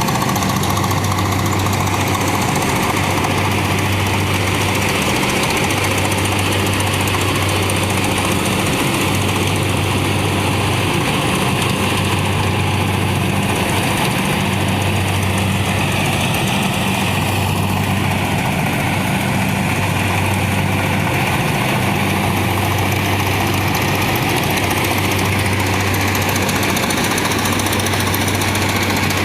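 Kubota rice combine harvester running steadily under load while harvesting, a constant loud machine drone with a low hum underneath.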